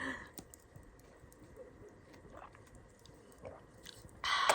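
A person chewing a mouthful of grilled pork belly, with faint small clicking bites, then a loud breathy exhale near the end.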